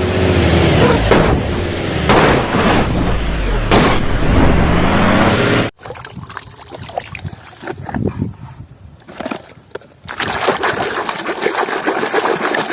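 Water splashing and running over a plastic toy being washed, loud at first, cutting off abruptly about halfway, with scattered clicks and knocks before the rush of water returns near the end.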